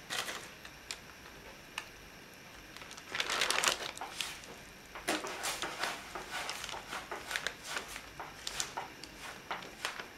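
Baking parchment crinkling and rustling under hands stuffing vegetables into a whole sea bass lying on it. A few sharp clicks, a louder rustle about three seconds in, then a run of irregular crackles.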